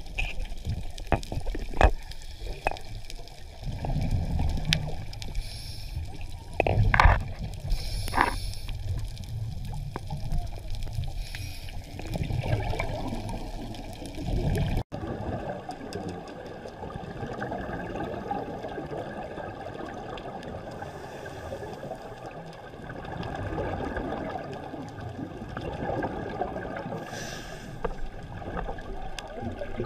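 Underwater sound picked up by a diver's camera: muffled water noise and gurgling, with scattered knocks and splashy bursts in the first half. About halfway through it changes abruptly to a steadier underwater hiss.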